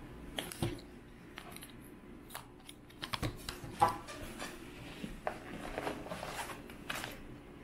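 Cloth tote bag being handled and opened, giving irregular fabric rustles and light clicks and knocks as the shopping inside shifts, with one sharper click about four seconds in.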